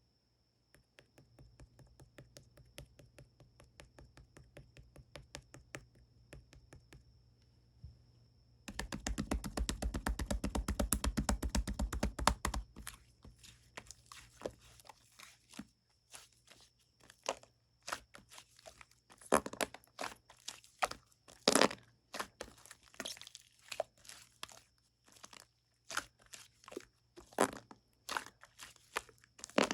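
Light-green slime being worked by hand, making rapid clicking and crackling pops. The clicks come fast and even, grow loud and dense from about nine seconds in to about twelve, then give way to slower, separate, louder pops.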